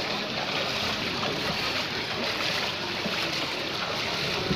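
Floodwater swishing and sloshing steadily as the wheels of a pedalled cycle push through the flooded street.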